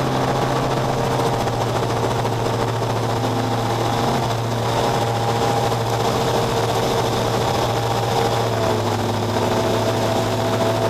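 Cessna 172's piston engine and propeller running steadily at takeoff power, heard inside the cockpit, as the aircraft lifts off and climbs away after a touch-and-go. The engine tone dips slightly about eight seconds in.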